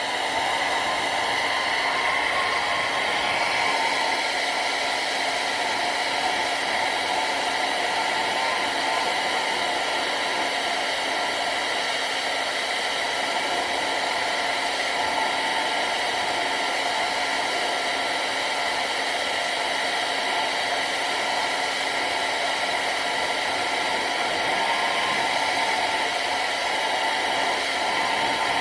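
Handheld hair dryer blowing steadily, a constant whooshing rush of air with a steady motor hum under it. It is heating a plastic decoy's neck socket.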